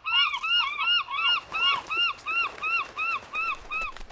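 Seagulls calling: a quick series of short, arched cries, about three a second, several overlapping at first, then growing fainter toward the end.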